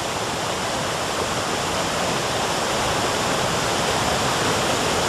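Floodwater of the Ruidoso River rushing in a steady, loud roar, surging against trees in the current.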